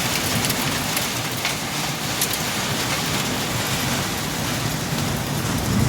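Heavy rain pouring steadily on a road: a dense, even hiss with scattered drop ticks.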